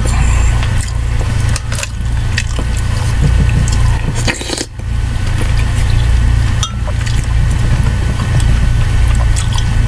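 Eating sounds: a metal spoon scraping and clinking against a ceramic mug of soup, with slurping and chewing, a few sharp clinks standing out. A steady low hum runs underneath.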